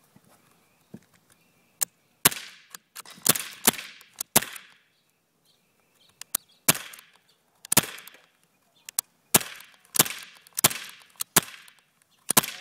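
Silver Desert Eagle BB pistol firing a string of shots: about a dozen sharp cracks at uneven gaps of roughly half a second to two seconds, each followed by a short hiss.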